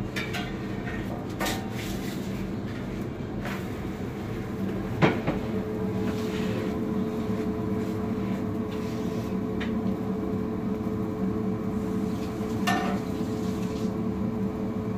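Metal spatula scraping and knocking against a large frying pan as a pancake is worked loose and moved, a few separate clicks with the sharpest knock about five seconds in. Underneath runs a steady rushing background, with a steady hum coming in about halfway.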